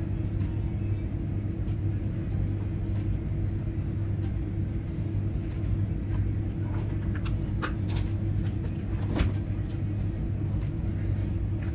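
Steady low droning hum with a few faint clicks over it.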